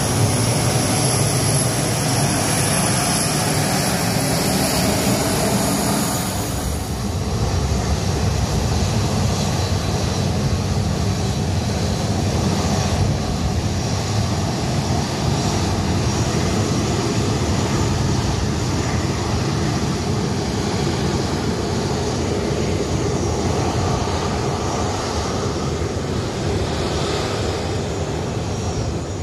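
Boeing 737 twin-jet's turbofan engines running as it taxis: loud, steady jet noise with a high whine that drops away about six seconds in, leaving a low rumble.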